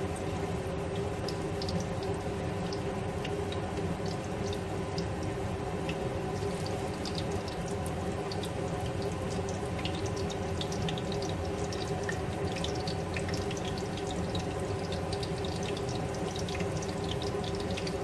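Hot oil sizzling steadily around marinated, egg-coated boneless chicken cubes deep-frying in a pan, with a constant scatter of small crackles and pops.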